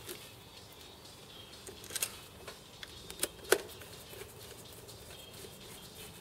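Screwdriver driving self-tapping screws into an aluminium base plate: small metallic clicks and ticks, with a few sharper clicks in the middle, the loudest about three and a half seconds in.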